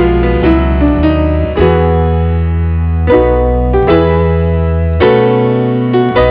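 Background music: slow, sustained piano-type keyboard chords over deep bass notes, a new chord struck about every second.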